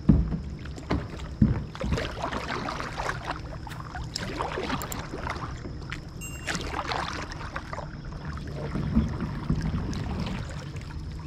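Kayak paddling on calm water: paddle blades dipping and splashing irregularly, water lapping at the plastic hull, over a steady low rumble. Two sharp knocks stand out in the first second and a half.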